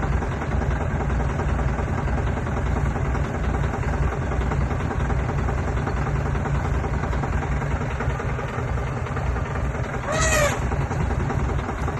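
Safari jeep engine idling steadily. Near the end, one short, high animal call rises and falls over about half a second.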